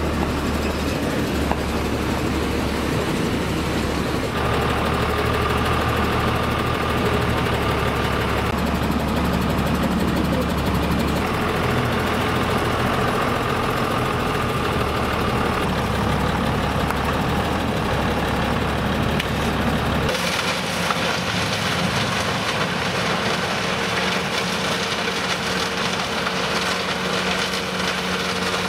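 Heavy diesel machinery running steadily, with the sound changing abruptly about 4, 11 and 20 seconds in.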